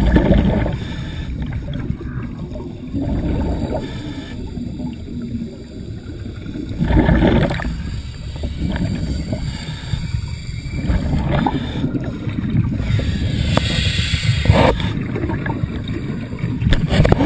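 Air bubbling underwater, in louder gurgling bursts every few seconds over a steady low rumble.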